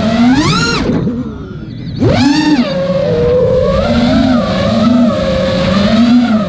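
FPV quadcopter's motors and propellers whining, the pitch rising and falling with the throttle. The whine climbs steeply to a high pitch under a second in, drops and goes quieter for about a second, then climbs steeply again and wavers up and down for the rest.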